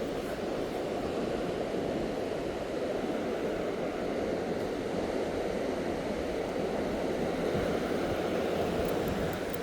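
Steady rushing noise of wind and surf on an open beach, with no distinct events.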